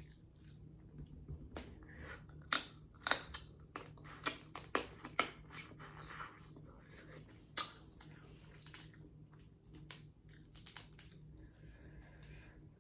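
Close-up eating sounds of a snow crab boil: the crab's shell cracking and snapping in a series of sharp clicks, with chewing between them.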